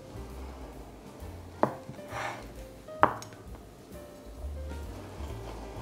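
Large kitchen knife slicing through a slab of salo (cured pork fat) and knocking sharply on a wooden cutting board twice, about a second and a half apart, over quiet background music.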